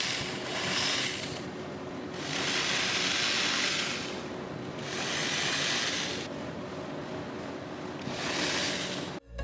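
Cordless drill running and boring small holes into a plywood panel. It cuts four times in a row, each a second or two long, with a quieter whir between.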